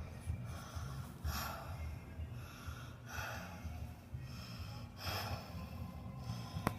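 A person breathing slowly and audibly close to the microphone, one breath about every two seconds, over a low rumble, with a sharp click near the end.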